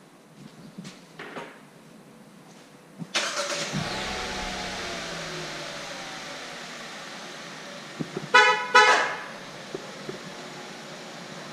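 Hyundai Avante AD's engine starting by remote start: it fires about three seconds in and runs at a fast idle that slowly settles. Near the end the car's horn gives two short toots.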